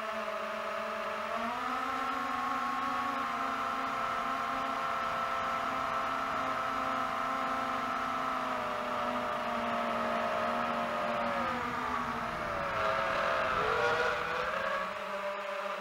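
FPV quadcopter drone's motors and propellers whining steadily, picked up by the drone's own camera. The pitch steps up about a second and a half in and wavers up and down near the end.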